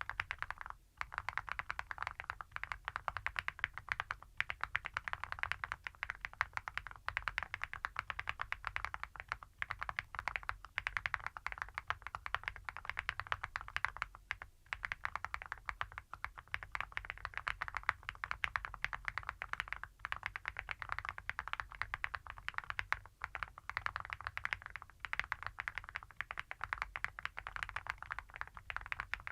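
Mechanical keyboard being typed on steadily: Awekeys full metal keycaps on Epomaker Creamy Jade switches, giving a heavy, clacky sound. Many keystrokes a second, with a few brief pauses.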